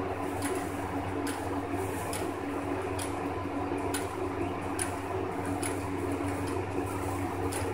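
Guinea pigs chewing and rustling loose hay: irregular short crisp crunches, about one or two a second, over a steady low hum.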